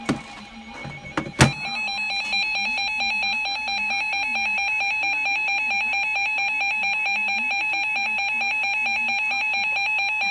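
Emergency alert receiver's electronic alarm beeping in a rapid, even pulse at one fixed pitch, sounding the alert for a Special Marine Warning. A sharp click comes just before the beeping starts.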